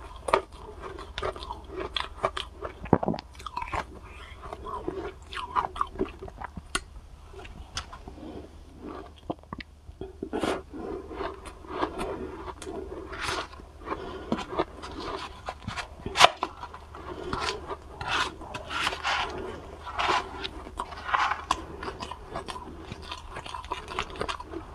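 Close-miked crunching and chewing of soft, fluffy cotton ice, in an irregular string of crunchy bites.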